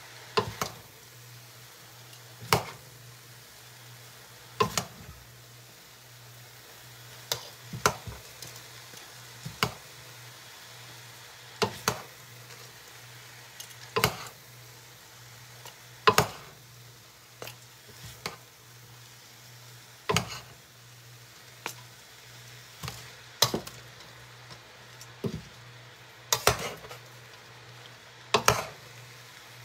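Metal tongs and a wooden spatula knock against the side of a large stainless steel pot as noodles are tossed, about one sharp clank every two seconds. Under it run a faint sizzle and a low steady hum.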